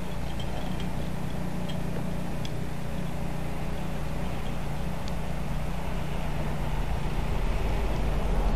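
Steady low hum and hiss of background noise from an old camcorder recording, with no barking.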